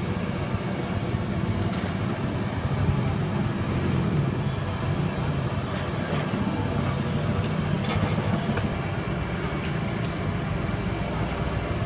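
Steady low rumble of street background noise, with a few light clicks scattered through it.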